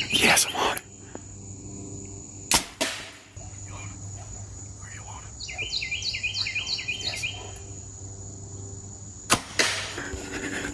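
A compound bow is shot: a sharp snap of the string released about nine seconds in, with a short ring after it. Another sharp click comes about two and a half seconds in. A bird sings a run of chirped notes in the middle, over a steady high insect drone.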